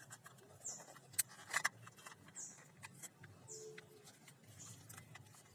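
Faint high chirps of a small bird, four short notes each falling in pitch, about a second apart, over light scattered clicks of handling.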